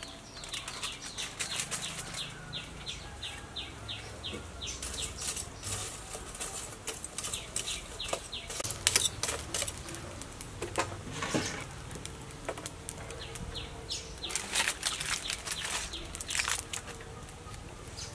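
Charcoal fire crackling in a clay stove: sharp pops and snaps, at first a regular run of about three a second, then in irregular clusters.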